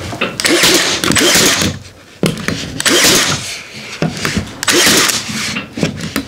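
WORX 18-gauge cordless brad nailer firing brad nails through a baseboard, three shots about two seconds apart, each a loud burst of about a second with a motor whir.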